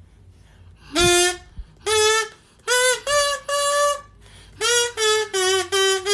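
A kazoo buzzing out a short tune of about nine short, separate notes, starting about a second in.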